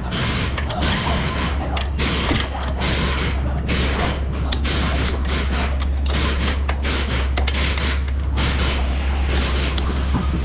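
Rapid mechanical clicking and clatter of a ratchet-type hand tool working on metal, over a steady low hum.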